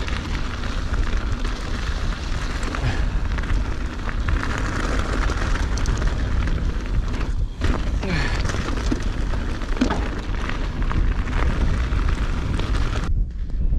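Heavy wind rumble buffeting a chest-mounted GoPro's microphone while riding a mountain bike, with a steady hiss over it. The hiss drops away suddenly near the end while the low rumble carries on.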